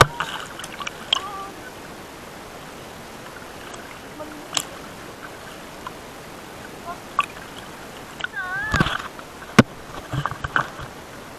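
Kayak paddle strokes splashing in shallow sea water, with water lapping against the kayak's plastic hull and a few sharp knocks.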